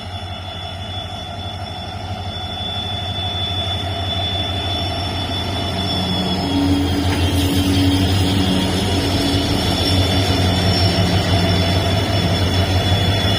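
Twin WDG4 diesel-electric locomotives humming, their EMD two-stroke V16 diesels giving a low steady drone under a high, steady whine. The sound grows louder through the first half as the locomotives come closer, then holds.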